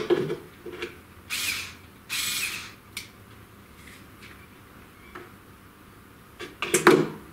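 Tool handling on a workbench: a sharp knock, two short hissing scrapes, then a quick cluster of knocks as a cordless drill is put down on the board.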